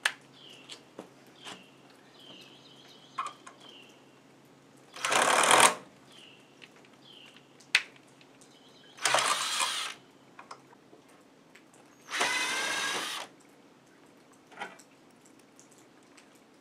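A cordless power driver backs screws out of a wooden chair in three short runs. Each run lasts about a second and they come a few seconds apart.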